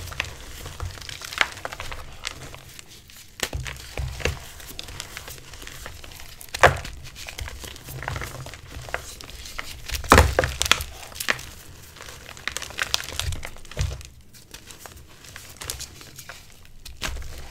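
Hands crushing and squeezing lumps of dried, reformed gym chalk: soft powdery crunching and crumbling, with sharper cracks as chunks break apart, the loudest about seven and ten seconds in.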